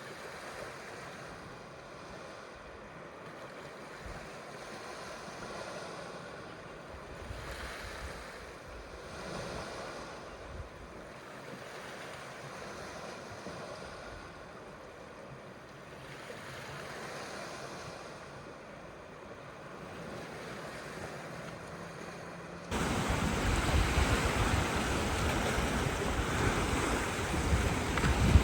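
Waves washing onto a shore, swelling and easing every few seconds. About 23 seconds in it cuts suddenly to louder, rougher surf with wind rumbling on the microphone.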